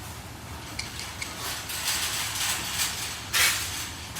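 Light metal clicks of coilover nuts and hand tools being handled as the hardware is snugged up, with one short scraping rush about three and a half seconds in.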